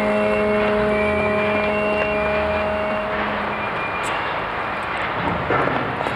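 Shipyard machinery noise: a steady mechanical drone with held tones that stops about three seconds in. Dense noisy clatter follows, with a few sharp clicks near the end.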